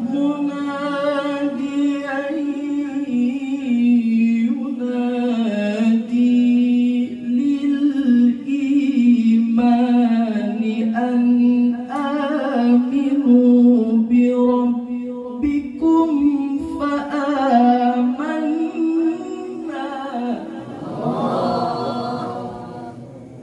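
A man's solo voice reciting the Quran in melodic tilawah style, holding long ornamented notes and sliding between pitches. The recitation stops about twenty seconds in, followed by a short burst of noise.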